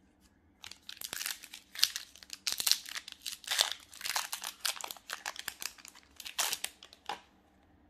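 A foil trading-card booster pack wrapper crinkling and crackling in the hands as it is handled and opened, in quick irregular bursts that stop about a second before the end.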